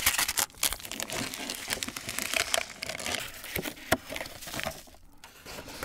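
Close-up crinkling and shaking of plastic instant-noodle seasoning sachets as they are flicked, torn open and emptied into a cup ramen. A few sharp ticks come about three and a half to four seconds in, then the handling quietens.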